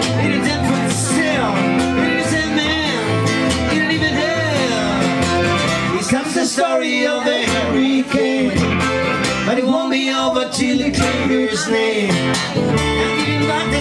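Live trio playing: a Roland accordion, a strummed acoustic guitar and an electric guitar together, with a wavering melody line over the strumming.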